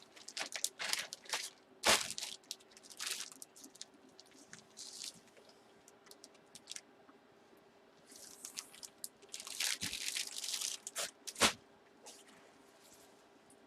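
Plastic bags and packaging crinkling and rustling in irregular bursts as items are handled, with two sharp knocks, one about two seconds in and one later on.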